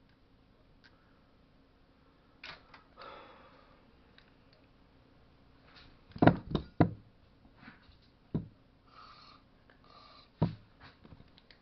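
Small metal chainsaw engine parts handled and set down on a workbench: a few sharp knocks and clicks, the loudest three close together about six seconds in, with short scraping sounds in between.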